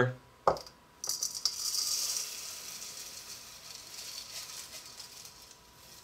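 Dry crisp rice cereal being scooped and poured from a small plastic measuring cup into a glass bowl. A single tap comes about half a second in, then a rattling, rustling pour of the small grains, loudest between one and two seconds in and easing to a light rustle.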